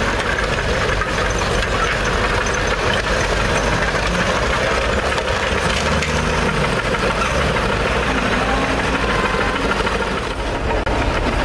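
Diesel engine of a tractor-based road roller running steadily as the roller compacts a fresh asphalt patch.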